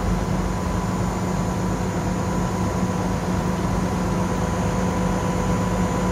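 Fire engine's engine running steadily in pump gear, driving its fire pump: a constant drone with a steady hum that does not change.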